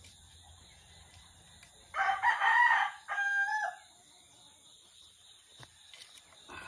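A rooster crows once about two seconds in, a wavering call that ends on a short held note.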